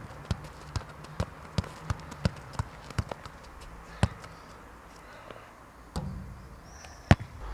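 A football dribbled by hand on a synthetic sports court: sharp, regular bounces at about two to three a second, slowing after about three seconds. About six seconds in, the ball is shot and strikes the basketball backboard, and a single loud impact follows about a second later.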